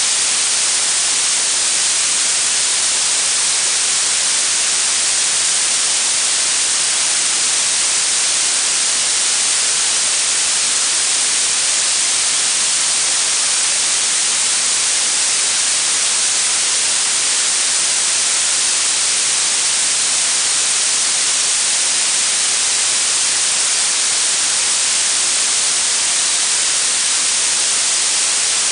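Blue noise: a steady, even hiss weighted toward the treble and thin in the bass.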